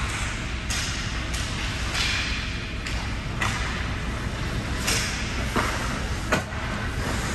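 Ice hockey play: about eight sharp clacks of sticks and puck on the ice, each ringing briefly in the rink, over a steady scrape of skates on ice.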